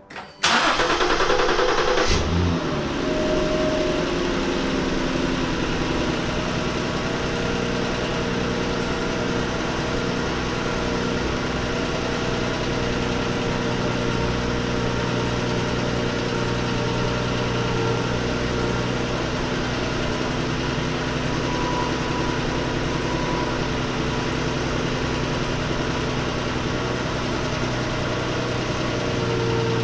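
Lincoln MKX V6 engine starting about half a second in, revving up briefly for about two seconds, then settling into a steady idle. This is the first start on a newly installed battery.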